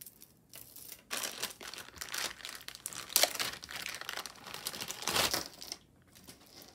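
A clear plastic zip-top bag crinkling and rustling as it is opened and a beaded necklace is pulled out of it. The crinkling is irregular and stops about a second before the end.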